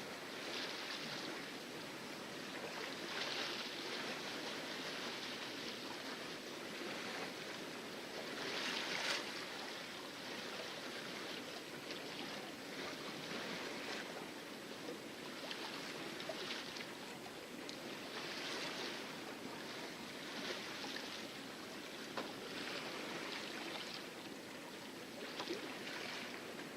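Water splashing against the hull of a sailboat sailing in calm seas, rising in uneven washes every couple of seconds, the loudest about nine seconds in.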